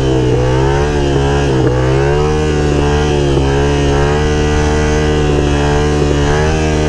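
Yamaha FZ-07 (MT-07) stunt bike's parallel-twin engine held under steady throttle while ridden, as in a wheelie. Its pitch steps up slightly about two seconds in, with a few brief dips.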